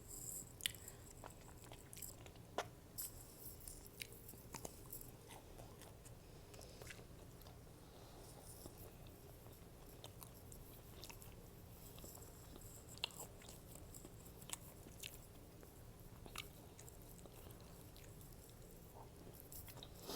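Close-miked chewing and biting of food, with scattered short wet clicks and smacks from the mouth a second or two apart, over a faint steady hum.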